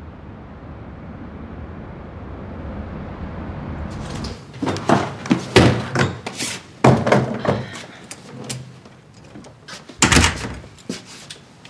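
A steady hum of background noise, then an apartment front door being opened and pushed shut, with a clatter of knocks, handling and rustling of bags and clothes, and a loud thud about ten seconds in.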